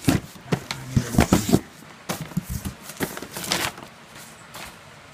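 Handling noise of a boxed firework cake and its cardboard and plastic packaging: irregular knocks, clicks and rustling, busiest in the first couple of seconds and again about three seconds in.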